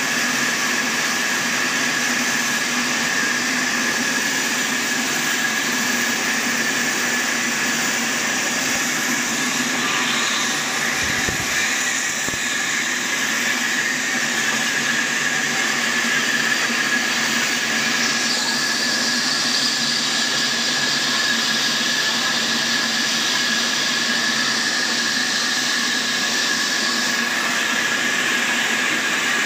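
Band sawmill running steadily, its band blade cutting lengthwise through a large log with a continuous whine and sawdust hiss. The hiss grows brighter for several seconds in the second half.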